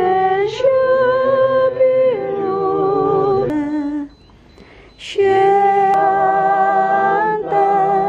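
Voices singing long held notes, in two phrases with a short break about four seconds in.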